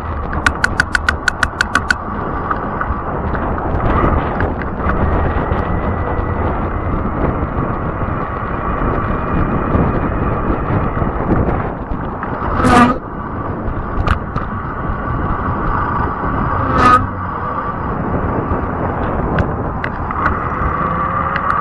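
Fat-tire e-bike riding along pavement: a steady motor whine over the rumble of the tires. Near the start there is a quick run of about eight clicks, and later there are two sharp knocks a few seconds apart.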